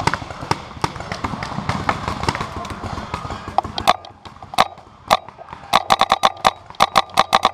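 Paintball markers firing: sharp pops, single at first, then in rapid strings of several shots a second in the second half.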